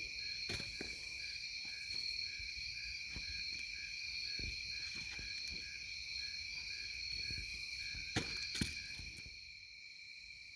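Night chorus of crickets and frogs: steady high trilling with a call pulsing about twice a second. A few sharp clicks and knocks break in, two of them louder about eight seconds in.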